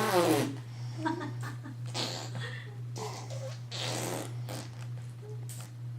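Baby vocalizing: a loud pitched voice sound in the first half-second, then scattered short, softer grunts and breathy noises.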